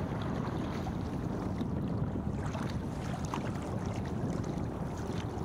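Wind buffeting the microphone of a kayak's deck-mounted camera, with scattered short splashes and drips of water from double-bladed kayak paddle strokes.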